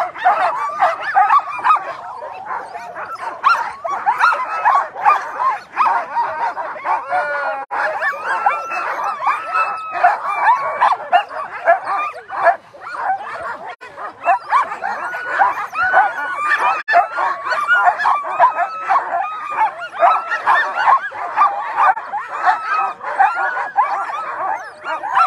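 A team of Alaskan huskies in harness yipping, barking and whining all at once in a continuous, overlapping clamor: sled dogs eager to run before the start.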